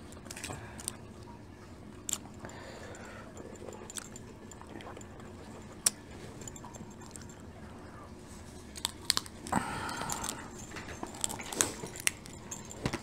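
Cooked shrimp shells being peeled by hand: scattered small clicks and crackles, with a denser cluster about nine to ten seconds in.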